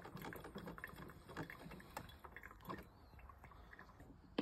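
Cuisinart drip coffee maker brewing into its glass carafe: faint, irregular spitting and dripping sounds over a low steady hum.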